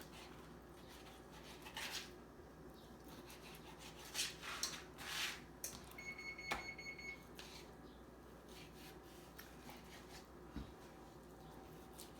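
A knife cutting raw chicken breast into chunks on a cutting board: faint, scattered slicing scrapes and light taps. A brief faint high pulsing tone sounds about six seconds in.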